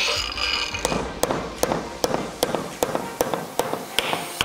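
Hammer tapping on metal in a quick, even rhythm of about two to three sharp blows a second, starting about a second in.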